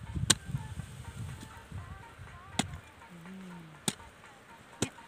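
Hoe blade chopping into dry, stony soil: four sharp strikes, the first the loudest. A short voice is heard about three seconds in.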